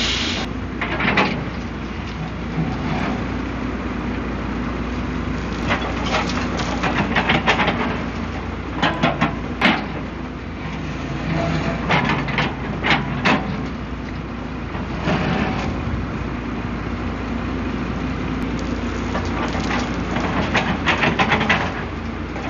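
Diesel engine of a Hyundai earthmoving machine running under load, its pitch rising and falling as it works. Clusters of clanks and knocks come every few seconds over the engine.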